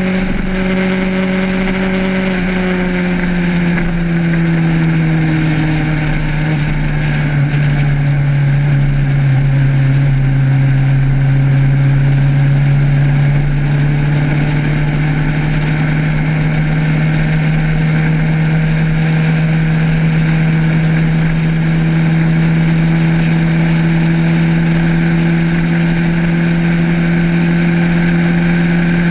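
Motorcycle engine running at cruising speed. Its hum falls in pitch over the first several seconds, rises a little about halfway through and then holds steady, over a constant rush of wind and road noise.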